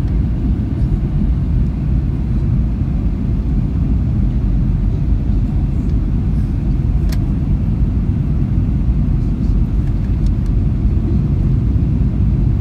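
Steady low rumble of Boeing 737-900 airliner cabin noise, the engines and airflow heard from a seat inside the cabin, with one sharp click about seven seconds in.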